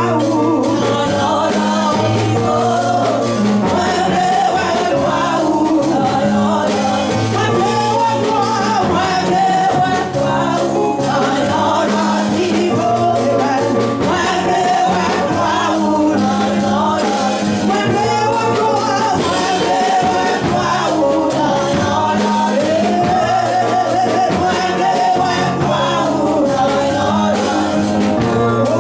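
Gospel worship song with a band playing and voices singing together, a steady bass line and drums driving the beat.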